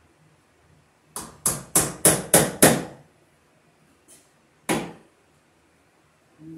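Hammer blows against a wooden wall stud where an electrical box is mounted: six quick, sharp strikes at about three a second, growing louder, then a faint tap and one more strike about two seconds later.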